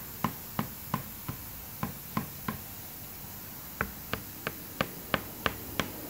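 Rubber-mallet taps on the front timing cover of a Mercedes M103 engine, about three a second in two runs with a pause of about a second midway, vibrating the cover loose from the block.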